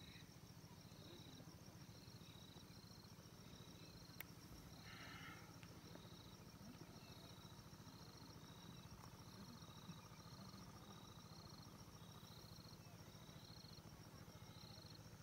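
Faint insect chorus: a steady high trill with short high chirps repeating about every two-thirds of a second. A single faint click about four seconds in.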